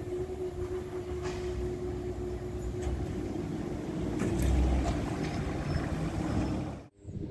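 Level crossing barriers rising with a steady hum, then a car crossing the tracks, loudest about four and a half seconds in. The sound cuts off abruptly near the end.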